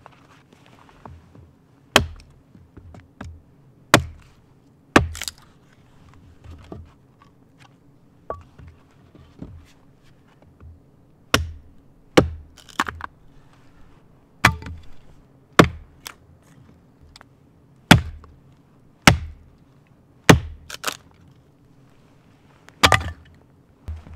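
Axe chopping wood: sharp single strikes, one every second or two, with a longer pause in the middle and a few quick pairs.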